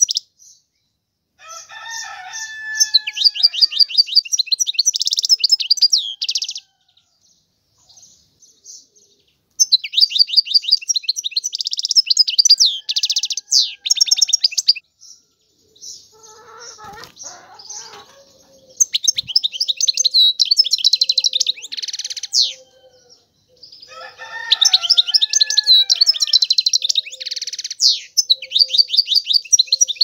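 European goldfinch singing in four bursts of fast, high twittering trills and buzzy notes, with short pauses between the phrases.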